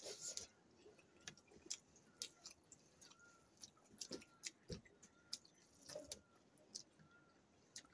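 Close-up mouth sounds of eating: soft, irregular chewing with wet lip smacks and clicks as food is taken by hand.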